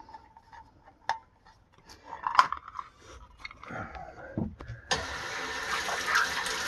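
A few clicks and knocks, then about five seconds in a steady rush of water starts suddenly: water flowing as the sediment filters begin backflushing.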